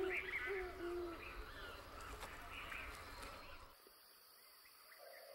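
Wild animal calls: short, low hooting notes repeated several times under higher twittering chirps, cutting off suddenly about three and a half seconds in to a faint background.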